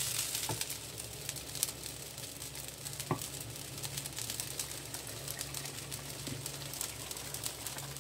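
Turmeric-tinted rice grains being stir-fried in a wok with a wooden spatula: a light sizzle full of small scratchy ticks, with a couple of sharper taps and a steady low hum underneath.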